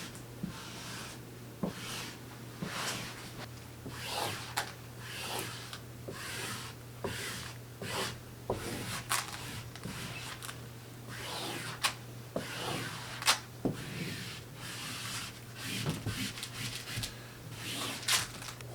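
Vinyl peel-and-stick wallpaper panel rustling and rubbing as it is handled and smoothed onto the wall, in irregular swishes with a few sharp crinkles, over a faint steady low hum.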